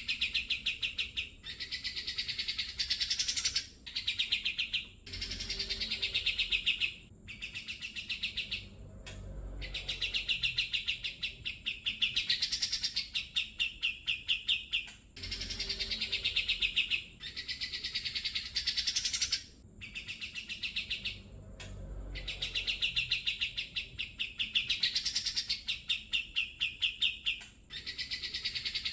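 Song of a cucak jenggot (grey-cheeked bulbul): runs of rapid trilled notes in phrases of one to three seconds, broken by short pauses. The same sequence of phrases repeats about halfway through, as a looped recording.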